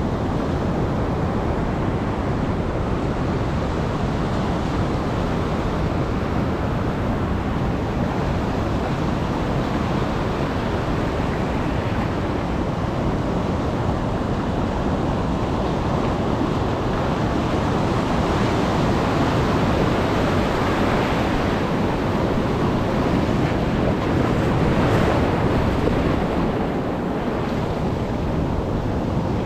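Rough-sea surf washing on the beach, a steady roar of breaking waves with wind buffeting the microphone. It swells louder about two-thirds of the way through.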